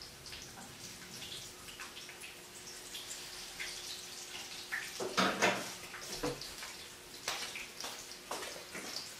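Light crackling with many small scattered pops, like chicken legs frying in oil in a pan, and a louder clatter about five seconds in.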